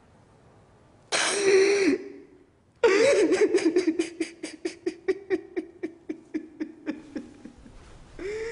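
A man's wordless vocal outburst: a short cry about a second in, then a long run of rhythmic voiced gasps that slow down and fade.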